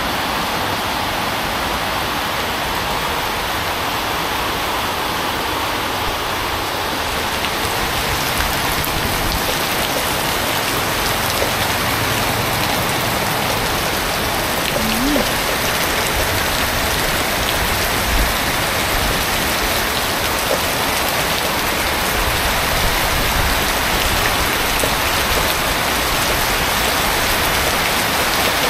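Heavy tropical rain pouring down steadily, a dense even hiss of falling water that grows a little fuller about eight seconds in.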